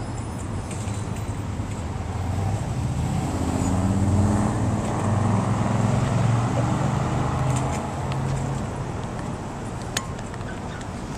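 A pickup truck driving past close by, its engine sound swelling over several seconds and then fading, over steady street traffic. A brief click near the end.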